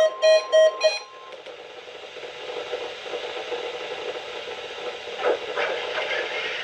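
Repeating electronic beeps, pulsing a few times a second, stop about a second in. A faint steady tone lingers briefly after them. Then comes a steady hiss of radio static.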